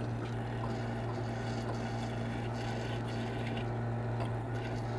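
Benchtop drill press running with a steady hum as its bit drills a screw hole through a welded steel hinge piece clamped in a vise.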